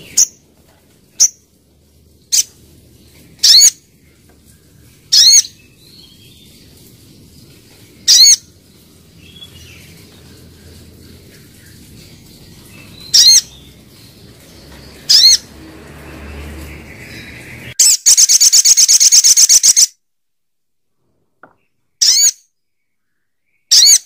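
Sunbird (sogok ontong) calling: loud, sharp, high single notes at uneven intervals of one to five seconds, and a fast rattling trill lasting about two seconds a little past the middle.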